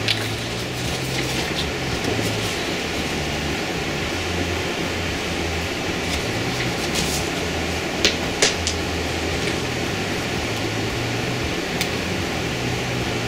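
Steady background hum of room noise, with a few light clicks and taps as the drawing paper and brush pens are handled, two close together about eight seconds in.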